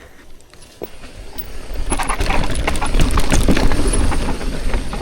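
Mountain bike descending a rough trail: tyres rumbling over rocks and roots, with a rapid clatter of chain and frame rattle and knocks, growing louder about a second and a half in as speed picks up.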